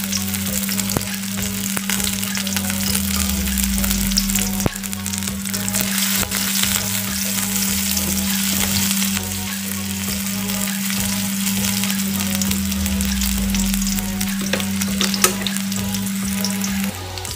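Sliced garlic and onion sizzling in hot oil in a wok, with a plastic spatula stirring and scraping against the pan. A steady low hum runs underneath and stops just before the end.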